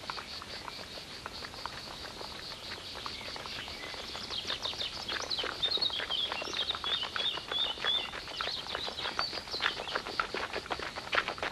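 Birds chirping and trilling. From about four seconds in, a horse's hooves clop steadily as a horse-drawn carriage approaches, growing louder.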